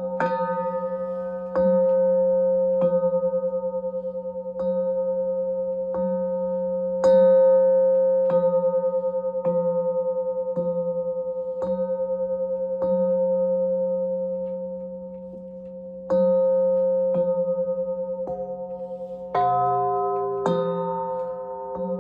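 Metal bowls struck about once a second, each ringing on in long overlapping tones with a wavering beat. After a short pause, a different bowl note joins near the end.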